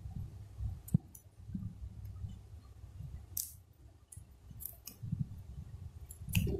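Hands handling a cardboard smartphone box in its plastic wrap: scattered clicks and taps, the sharpest about a second in, with a brief plastic rustle about three and a half seconds in.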